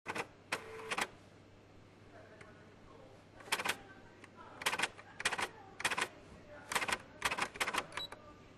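Typewriter being typed on: sharp key clacks in short, irregular bursts, with pauses of a second or two between them.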